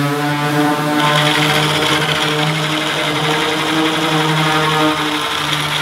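Handheld corded electric sheet-metal cutter running with a steady motor whine while biting through .050 in 3003 aluminum sheet. A rough cutting noise joins the whine about a second in.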